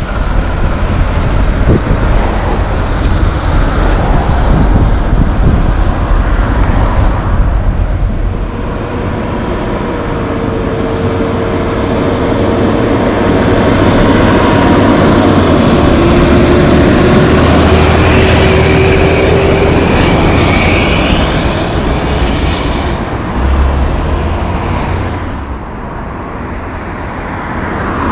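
Road traffic going by on a city street: heavy semi trucks hauling lowbed trailers and cars, a mix of engine drone and tyre noise that swells and fades as vehicles pass.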